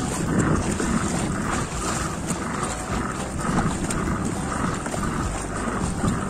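Wind on the microphone and water washing around a kayak at sea, with a soft swish that repeats about every two-thirds of a second.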